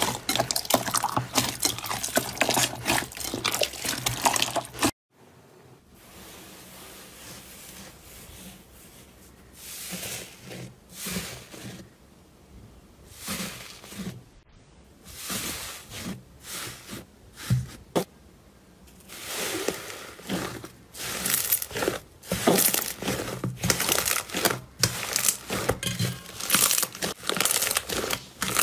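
Hands squishing and kneading slime: wet crackling and squelching that cuts off suddenly about five seconds in. A quieter stretch of scattered soft pokes and squishes follows, then dense crackling and popping as a lump of thick slime is squeezed in the last third.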